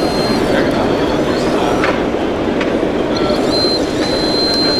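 Radio-controlled scale Volvo hydraulic excavator working: a thin, high, steady pump whine that stops just after the start and comes back about three and a half seconds in, over the loud steady din of a busy hall. A few light clicks sound in between.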